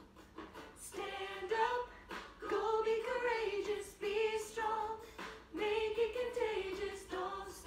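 A woman singing a song, holding several long notes.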